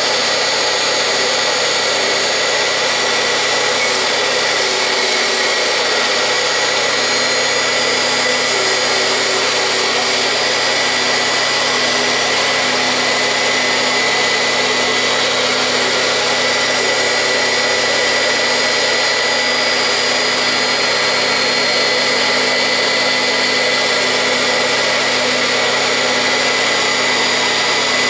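Dumore belt-driven toolpost grinder running at steady high speed, a steady high-pitched whine over a dense hiss, as its abrasive wheel is trued against a diamond dresser nib.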